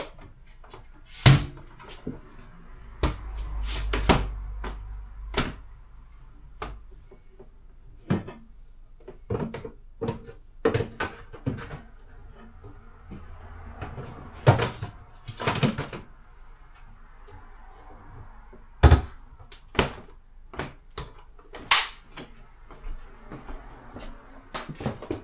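Kitchen cabinet doors opening and shutting and a plastic container and other items being handled and set down: a string of separate sharp knocks and clicks, the loudest about a second in and again past the middle.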